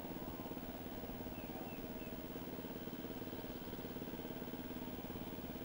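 An engine idling steadily, with an even, rapid pulse.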